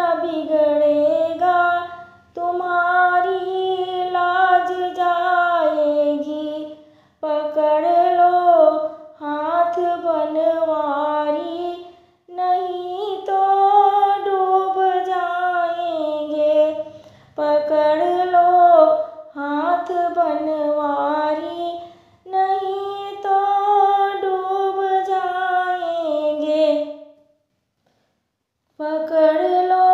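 A woman singing a Krishna bhajan unaccompanied, in sung phrases of a few seconds with short breaks for breath; she pauses for about two seconds near the end, then sings on.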